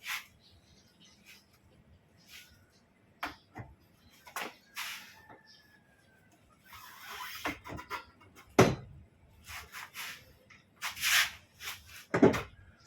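Hands-on mechanical work on the Peugeot 307 SW's spare-tyre winch as it is tightened: irregular scraping and rubbing with small clicks, and two louder dull knocks, one a little past the middle and one near the end.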